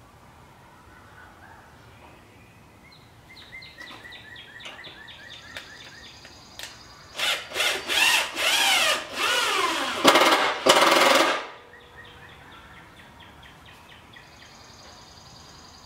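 DeWalt cordless drill/driver running into a wooden post: a few short bursts and then a longer run of about three seconds, its motor pitch dipping and rising as it loads up in the wood.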